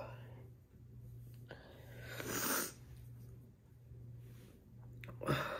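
A woman sniffling as she cries with a cold: a long breathy sniff about two seconds in and a shorter one at the very end.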